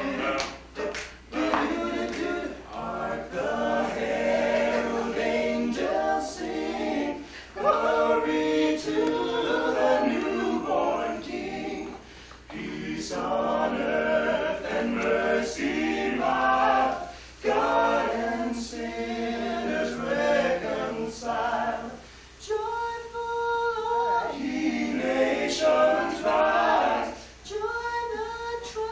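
A small men's a cappella vocal group singing in harmony without instruments. The song runs in phrases of a few seconds, separated by brief breaks.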